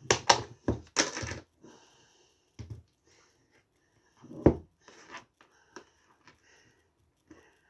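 Plastic spread tub being opened and handled: crackly rustles and clicks of the lid in the first second and a half, then a single sharp knock about four and a half seconds in, with a few small clicks after.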